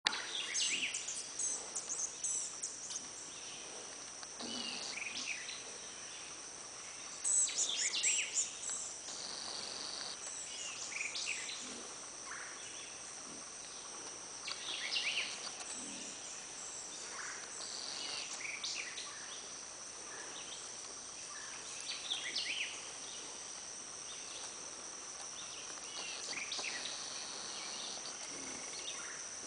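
Outdoor farm ambience: a steady high insect drone with short chirping calls scattered across it and a few faint low sounds.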